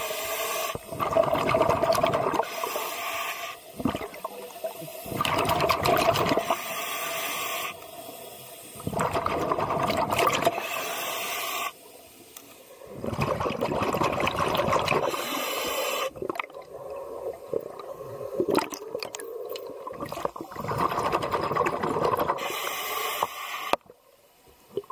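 Scuba diver breathing underwater through a regulator: a regular cycle of hissing inhalations and rushing bursts of exhaled bubbles every few seconds, fading near the end.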